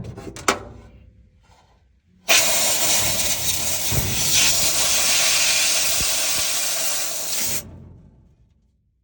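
A few knocks and clatters, then a steady loud hiss of a pressurised spray jet that starts about two seconds in and runs for about five seconds before cutting off, as the furnace blower wheel is cleaned.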